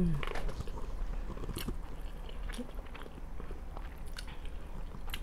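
Close-miked chewing and mouth sounds of a person eating a forkful of veggie pasta, with a short falling hum at the start and a few sharp clicks now and then.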